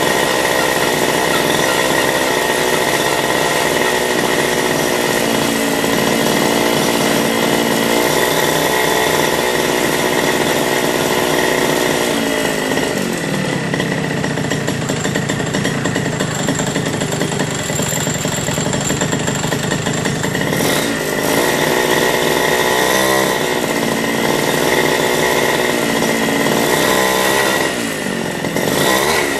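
Small bike engine running under test. It holds a steady high speed, then drops to a lower speed about 12 seconds in, with short revs about 23 seconds in and again near the end. A steady high whine runs alongside it.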